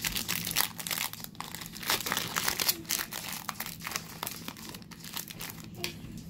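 Foil wrapper of a 2018 Panini Contenders Draft Picks football card pack crinkling and tearing as it is ripped open by hand. A dense run of sharp crackles fills the first few seconds and thins out toward the end.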